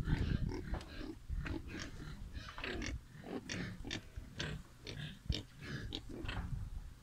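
Young pigs grunting in a string of short, irregular calls, with a brief low rumble at the start.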